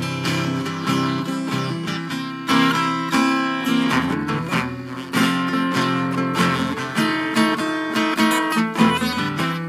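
Acoustic guitar being strummed, playing a steady run of chords.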